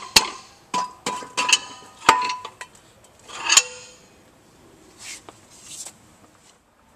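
Mallet blows on the pump head of a Grundfos CR10-10 vertical multistage pump, about four in the first two seconds, each with a short metallic ring, knocking the head loose from its seat. About three and a half seconds in comes a single louder clank as the head comes free and is lifted off.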